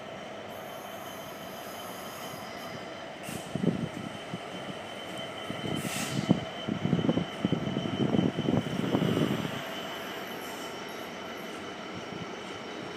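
A Class 66 diesel locomotive hauling a container freight train past: steady train noise with a sustained high whine. Irregular low rumbling swells from about three and a half to nine and a half seconds in, with one sharp click near the middle.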